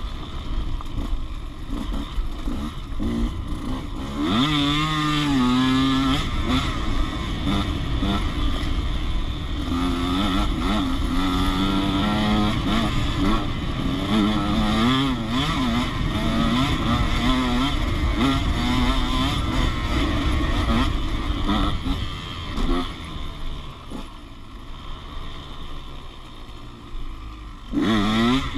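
Motocross dirt bike engine revving up and down through the gears, heard from on board over a steady rush of wind noise. Near the end the engine drops to a quieter, lower note for a few seconds, then revs hard again.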